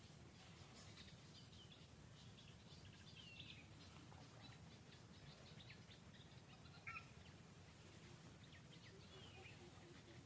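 Near silence: faint outdoor ambience with scattered faint, high chirps and one short click about seven seconds in.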